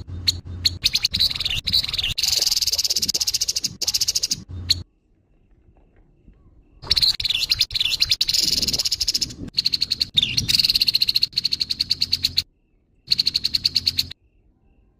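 Grey-headed babbler giving harsh, rapid rattling calls: a long burst, a pause of about two seconds, another long burst, then a short one near the end.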